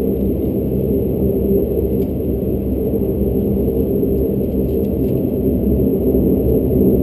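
Dash 8 Q400's Pratt & Whitney PW150A turboprop engines running, heard from inside the cabin: a steady drone of several pitched tones over a low rumble, growing slightly louder near the end.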